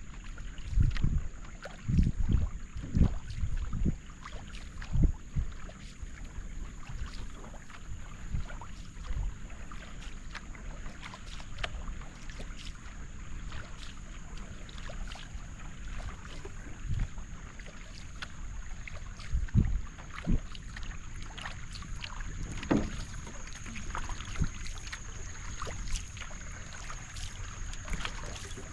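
Canoe paddle strokes: the blade dipping and pulling through calm water, with water dripping and splashing off it and the hull's wake hissing along the sides. A few low thumps in the first few seconds.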